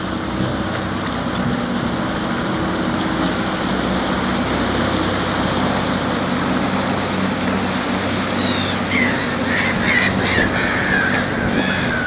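Boat engine running steadily over water and wind noise. From about eight and a half seconds in, a gull calls loudly several times in quick succession.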